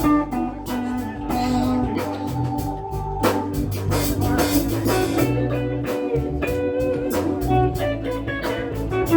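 Blues band playing an instrumental passage: electric guitar lines over bass and a drum kit keeping a steady beat.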